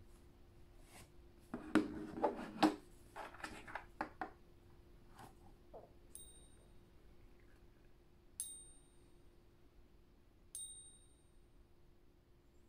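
1 oz American Silver Eagle coin balanced on a fingertip and struck three times with a smaller coin, about two seconds apart, for a ping test of its silver ring. Each strike gives a clear high ping that rings briefly. A few handling clicks and taps come before the pings, over a faint steady hum.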